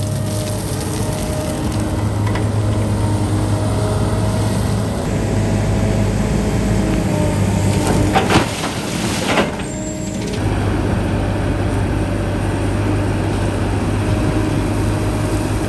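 Heavy construction machine's engine running steadily, with two short hisses about eight and nine and a half seconds in.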